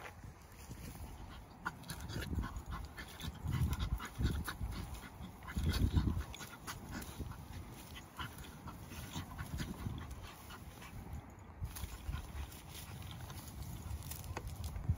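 A small dog panting while it sniffs and rolls on its back in dry grass, the grass rustling and crackling under it. A few louder low bumps come about two, four and six seconds in.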